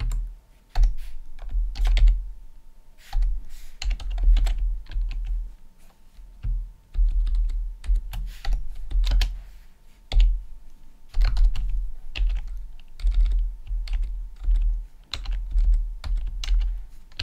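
Typing on a computer keyboard: irregular clusters of key clicks, each keystroke carrying a dull low thud.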